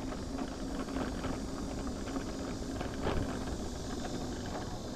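Steady road and engine noise inside a moving vehicle, with a low, even hum.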